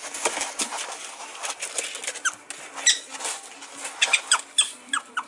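Two prairie dogs scuffling in a plastic tub: claws scrabbling and scratching on the plastic, with short high squeaks, several in quick succession near the end.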